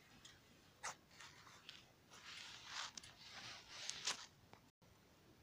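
Faint rustling and scraping with two sharp clicks, about a second in and about four seconds in: handling noise as the camera is moved and turned.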